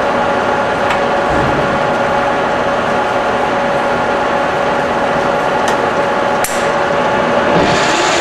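Warner & Swasey 1A turret lathe running, a steady mechanical hum with a whine from its motor and gearbox while the spindle is stopped, with a few sharp clicks. Near the end the spindle is engaged and the chuck spins up, and the pitch of the running changes.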